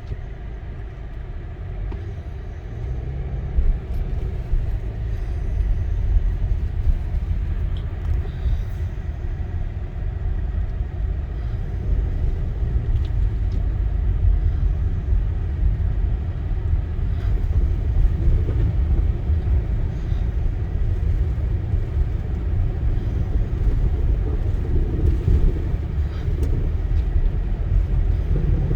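Car driving on snowy roads, heard from inside the cabin: a steady low road-and-engine rumble that grows louder a few seconds in.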